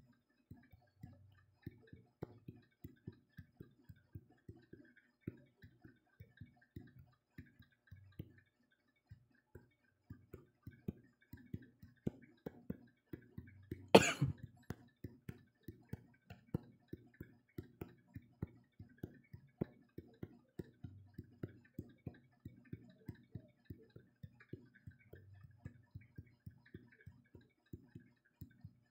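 Fingertip taps on a phone's touchscreen, picked up through the phone itself: a run of soft dull taps, roughly two to three a second, as dots are stamped onto a drawing. About halfway there is one much sharper, louder knock.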